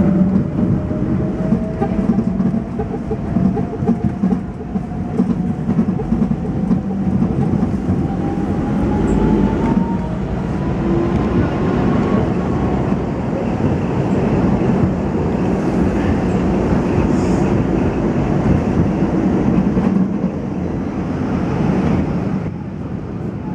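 Tram running along street track, its wheels rumbling and clattering on the rails, with a thin motor whine rising slowly in pitch over the first half as the tram gains speed. The running noise eases a little near the end.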